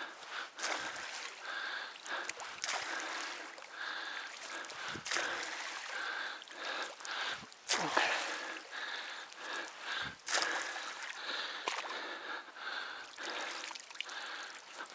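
A long branch swishing and splashing through duckweed-covered canal water as it is used to drag in a shot duck, with repeated sharp splashes and knocks. Heavy breathing from the person working the branch comes and goes throughout.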